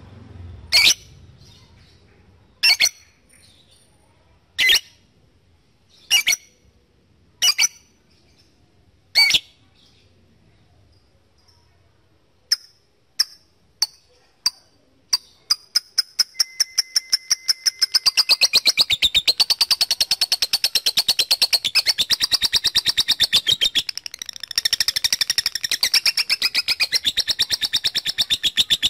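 Lovebird giving single sharp calls every second or two, then a run of clicks that speeds up about halfway into a long, very fast, continuous chattering trill: the 'ngekek panjang' song prized in contest lovebirds.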